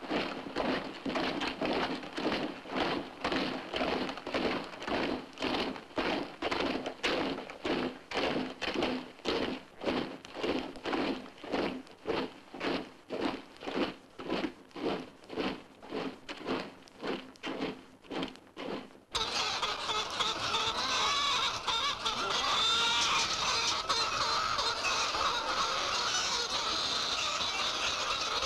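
An even, rhythmic pulsing of about two beats a second with a steady hum beneath it. About 19 seconds in it cuts off abruptly and a crowded flock of chickens takes over, clucking and squawking, louder than the pulsing.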